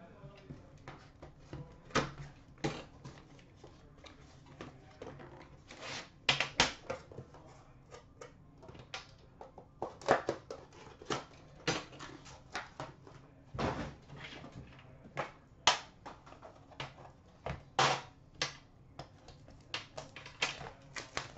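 A metal trading-card tin and its cardboard box being handled on a glass counter: the tin is slid out of the box, set down and its lid lifted off, giving irregular clicks, taps and knocks, a few of them sharper and louder.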